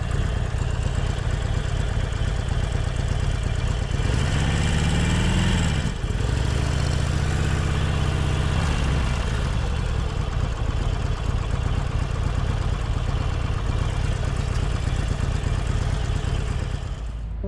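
Harley-Davidson Sportster Forty-Eight's air-cooled 1200 cc V-twin running under the rider. The revs climb twice in the first nine seconds, dropping suddenly once in between, then the engine runs steadily at low speed.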